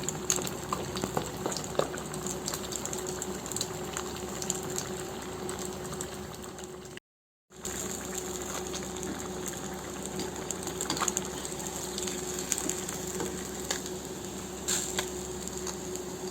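Masala-coated pomfret (vavval fish) frying in hot oil: a steady sizzle with scattered small crackles and pops. It stops for a brief silent gap about seven seconds in, then carries on.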